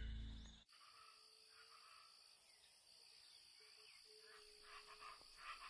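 Background music fading out and stopping abruptly within the first second, then near silence with faint natural ambience: a steady high insect drone and a few faint chirps.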